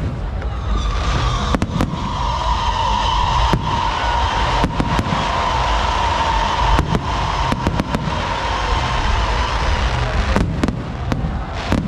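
Fireworks show finale: a rapid string of sharp bangs and cracks over a continuous low rumble, with a steady high tone sounding through most of the middle.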